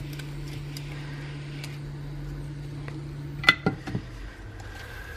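Hot air gun blowing with a steady hum, cut off a little over three seconds in, followed by a few sharp clicks of the tool or phone being handled.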